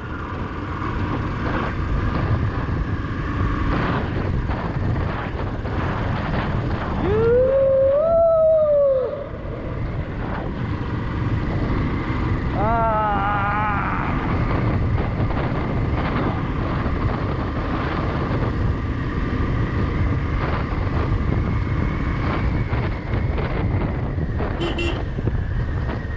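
Motorcycle engine running steadily while riding a rough gravel track, with wind rumbling on the microphone. A louder pitched sound rises and falls about eight seconds in.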